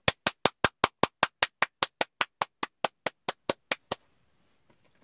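A rapid, even series of about twenty sharp percussive hits, about five a second, slowly fading and stopping about four seconds in.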